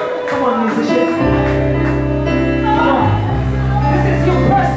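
Church music: sustained low keyboard chords come in about a second in, with a man's voice singing or chanting over them in a large hall.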